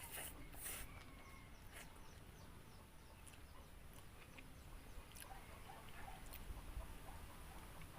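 Faint scattered short clicks and crunches of eating, with chickens and small birds calling faintly in the background.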